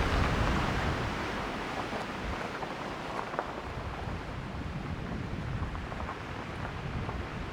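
Wind gusting across the microphone, a rough rumbling rush that is strongest at the start and eases off after about a second, then carries on unsteadily.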